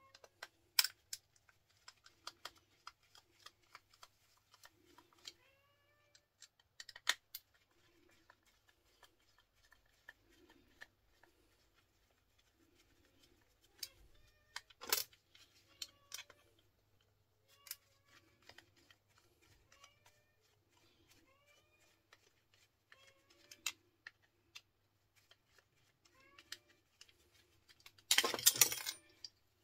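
Sharp clicks and scrapes of a screwdriver prying apart plastic electrical wall sockets and switches. Under them a cat outside meows faintly over and over, short calls every second or two. A brief loud clatter comes near the end.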